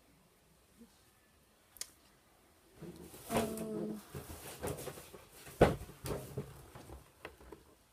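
Handling of trading cards and their foil promo-pack wrapper: near quiet with a faint click at first, then rustling and scraping about three seconds in, with a sharp click a little past halfway.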